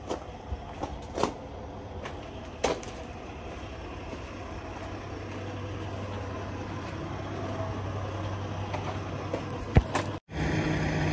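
Steady low engine hum with a few sharp knocks and footsteps on concrete. It cuts off suddenly near the end and gives way to a louder, steadier engine idle.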